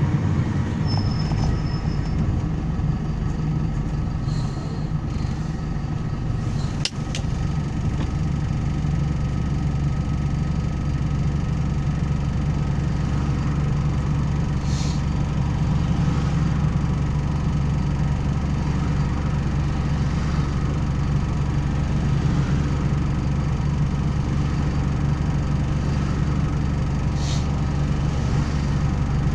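Truck engine heard from inside the cab, running as the truck rolls up to a red light, then idling steadily. A short sharp sound about seven seconds in.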